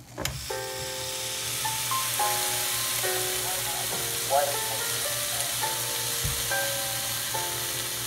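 Food sizzling as it cooks, a steady even hiss that sets in about a quarter second in, over soft background music of gentle melodic notes. There is a soft low bump about six seconds in.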